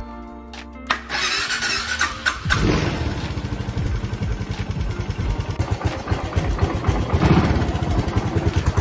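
Suzuki Savage LS650's single-cylinder engine cranked on the electric starter with the choke on; about two and a half seconds in, it catches and runs with loud, even firing pulses, briefly louder near the end.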